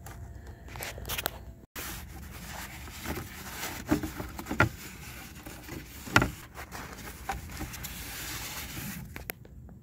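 Blue paper shop towel wiping and rubbing dust off the plastic side-mirror housing and the mirror glass, a steady rustling scrub with a few light knocks.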